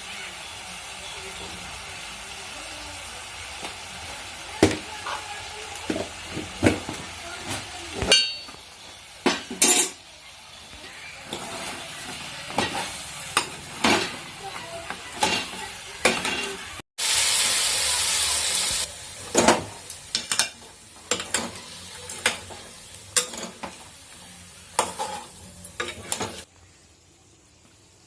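Chicken-feet curry sizzling in a pan while a metal ladle stirs it, knocking and scraping against the pan many times. About halfway through there is a louder stretch of sizzling hiss lasting about two seconds.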